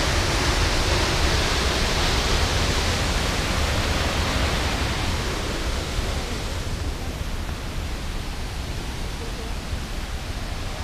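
Steady rush of fast-flowing creek water and waterfall in the canyon below, growing fainter after about six seconds.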